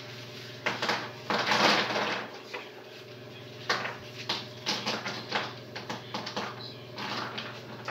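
Pecans in the shell rattling and clattering as they are emptied out of a pocket: a longer rattling rush about a second and a half in, then a run of separate clicks as nuts drop. A steady hum runs underneath.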